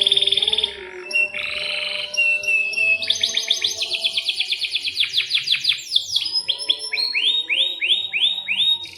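Domestic canary singing a long, continuous song: buzzy rolling trills, then a run of fast repeated chirps, and near the end a series of quick rising notes.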